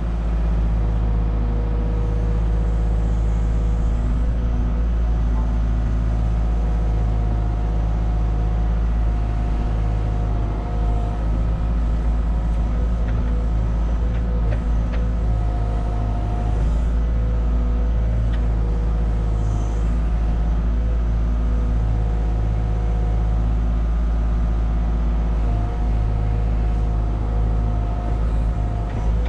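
Cat 306 mini excavator's diesel engine running steadily under load while it digs, heard from the operator's seat, with a whine that comes and goes several times over the steady engine note.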